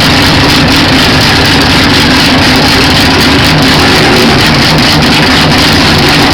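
Renault 5 Maxi Turbo's turbocharged four-cylinder engine running loud and steady, with no clear rise or fall in revs.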